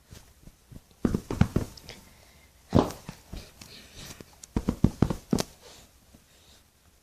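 Hands squeezing and pressing dolls, heard as handling noise: a cluster of soft knocks and taps about a second in, a strong thump near three seconds, and another cluster of taps around five seconds.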